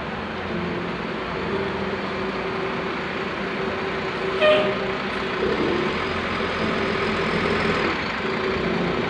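Large diesel coach's engine running steadily as the bus pulls slowly past close by. A short pitched toot sounds about four and a half seconds in.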